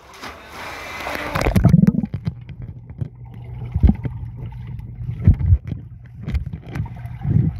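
Pool water splashing as a phone goes under the surface, then the muffled low rumble of a microphone held underwater, with a few dull thumps.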